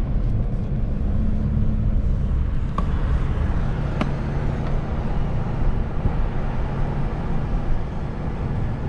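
A car engine running, a steady low hum, with two faint clicks about three and four seconds in.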